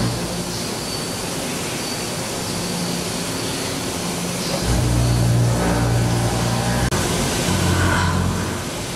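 5-axis CNC machining center rough-milling titanium alloy under flood coolant: a steady hiss of coolant spray over a low cutting hum that shifts in pitch a couple of times.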